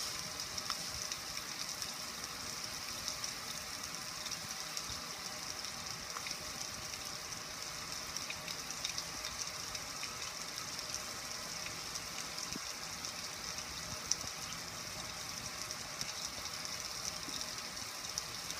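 Steady splashing of water streaming off a gas grill's lid and control panel and spattering onto concrete, an even hiss with a single brief tick near the end.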